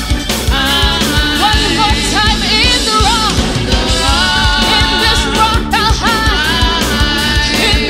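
Live gospel praise singing: women's voices on microphones, one lead singer over the others, backed by organ, bass guitar and drums.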